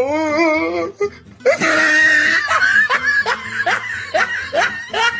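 A person laughing hard: a wavering, drawn-out note, then a run of short bursts of laughter, about two or three a second.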